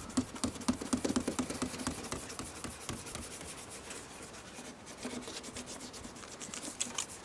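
Fine abrasive sanding pad rubbed up and down by hand over a sprayed, wet plastic headlight lens: a quick, rhythmic scrubbing of several strokes a second. It is louder for the first two seconds or so and softer after that. This is the wet-sanding stage that takes the haze off the lens.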